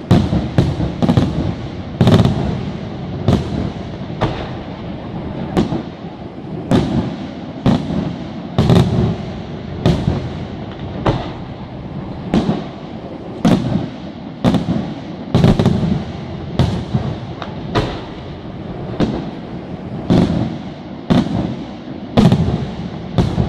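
Aerial firework shells bursting in a steady string of sharp bangs, a little more than one a second, each bang trailing off before the next.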